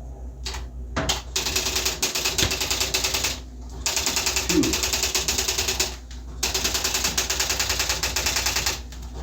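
Electronic typewriter printing in three runs of rapid, evenly spaced clatter, about two seconds each, with short pauses between them.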